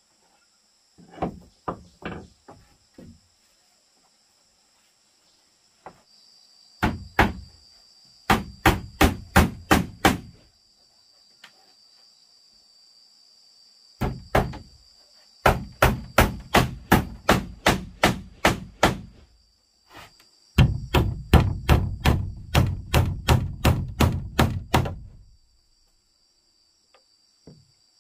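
Claw hammer driving nails through a wooden strip into plank wall boards. The strikes come in several runs of quick blows, about three a second.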